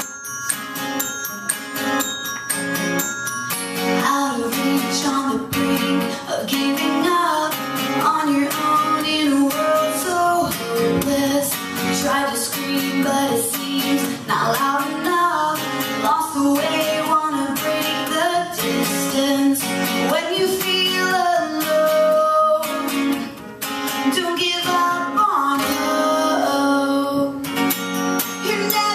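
Live acoustic band music: acoustic guitar strumming with keyboard accompaniment, and a woman singing over them from a few seconds in.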